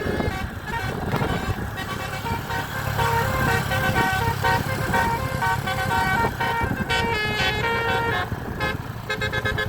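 Basuri telolet bus horn playing a quick tune of short notes that step up and down in pitch, with the bus engine running underneath.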